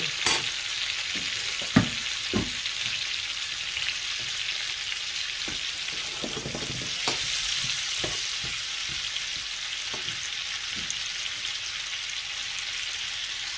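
Cauliflower and greens sizzling steadily in a nonstick frying pan as they are stirred, with a few sharp knocks and scrapes of a slotted spatula against the pan, the loudest about two seconds in.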